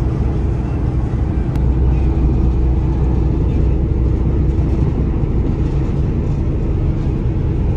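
Ferry's engines running with a steady low drone, heard on the open deck.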